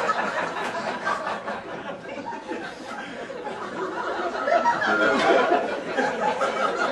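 Comedy club audience laughing after a punchline, the laughter easing off and then swelling again about four or five seconds in.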